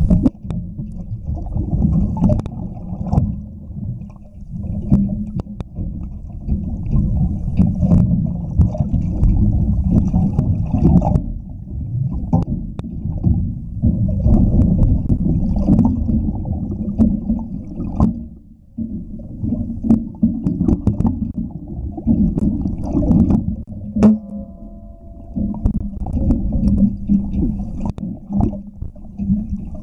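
Muffled underwater rumble and churning of seawater around the camera, with scattered light clicks and knocks.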